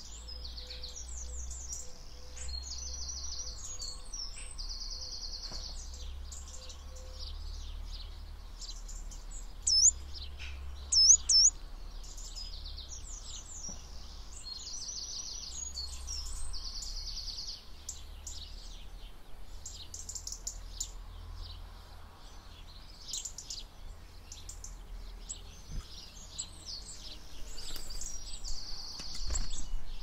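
Garden songbirds, tits among them, calling and singing: many high chirps and short, even trills of about a second each, with two loud rising chirps close by about ten and eleven seconds in. A steady low rumble lies underneath.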